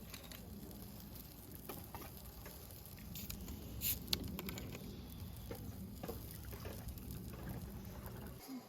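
Faint, irregular crackling and light clicks over a low steady rumble, with a couple of sharper ticks about four seconds in.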